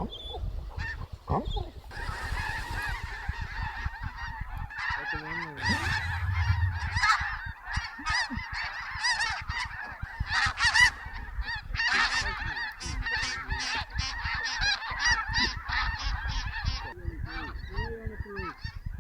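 A large flock of snow geese calling, many high, overlapping honks that build from about two seconds in and thin out near the end.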